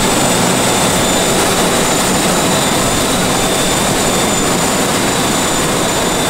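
Steady jet engine noise: an even rushing sound with a thin high whine over it, unchanging throughout.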